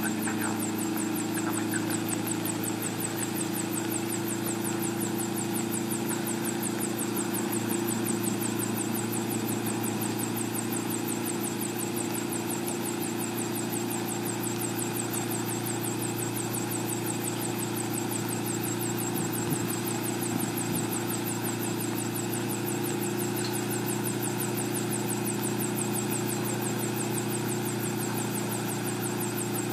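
Helisport CH-7 Kompress ultralight helicopter running on the ground at a constant speed, engine and rotor holding one steady note with a fast, even flutter high in the sound.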